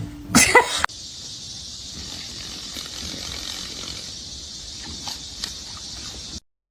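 A steady high-pitched hiss that holds at one level and cuts off suddenly near the end, following a few loud short sounds in the first second.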